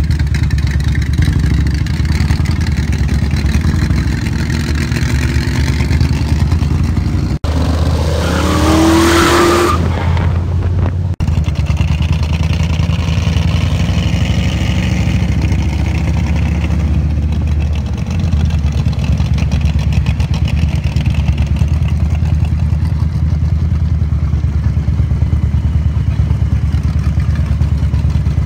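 Hot rod engines running with a steady deep rumble, with one rev rising in pitch about eight to nine seconds in.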